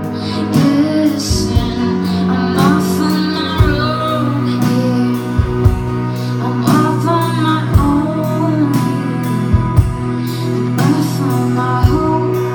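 A woman singing a song while strumming her own acoustic guitar, amplified through a live venue's sound system.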